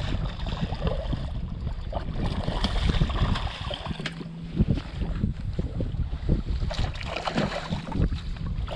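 A hooked pike thrashing and splashing at the water's surface beside a small boat, with strong wind buffeting the microphone. A steady low hum joins about four seconds in.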